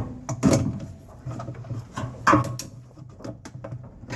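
Knocks and clicks of a washing machine's plastic drain pump and its fittings being handled as it is pulled off, the loudest about half a second and two and a half seconds in, over a steady low hum.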